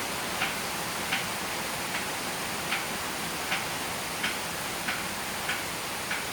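Steady rain hiss with water drops falling onto a surface in a slightly uneven rhythm, about one drip every two-thirds of a second.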